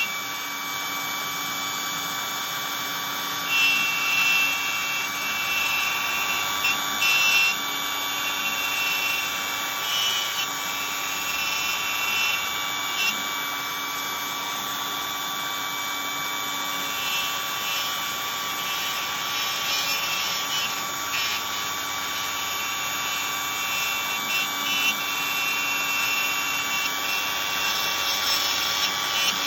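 Kit-built hobby CNC router running while carving a sign: the spindle gives a steady high whine, and higher whirring tones come and go as the machine moves and cuts.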